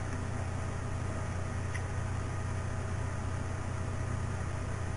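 Steady low hum with an even hiss, the background noise of the recording, broken by one faint click a little under two seconds in.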